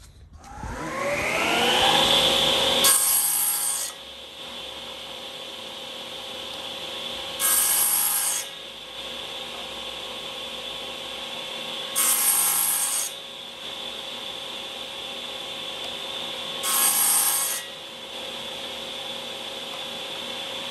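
Shopsmith run as a table saw: the motor spins up with a rising whine over about two seconds, then runs steadily. The blade crosscuts a 2x2 fir stick four times, each cut a loud rasp lasting about a second, roughly every four to five seconds.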